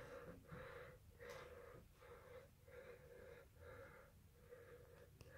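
Faint, rhythmic, wheezy snuffling, about two pulses a second, from a ferret kit breathing and snuffling as it tears at a raw chicken wing.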